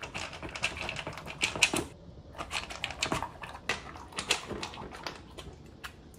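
A bully-breed dog eating kibble from a plastic slow-feeder bowl: quick, irregular crunching and clicking of food against the bowl, with a short pause about two seconds in.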